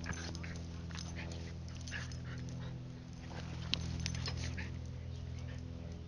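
Dogs play-fighting, making short scattered vocal sounds, with one sharp click a little under four seconds in, over a steady low hum.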